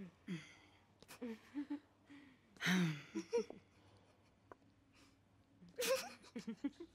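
Soft, breathy women's voices: sighs and stifled giggles in short bursts, with a brief falling sigh about three seconds in and a cluster of giggling near the end.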